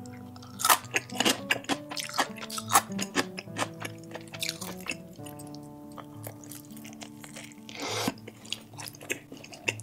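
Background music with held notes, under close-miked eating sounds: chewing and crunching food, with sharp clicks scattered through and a louder noisy bite or slurp about eight seconds in.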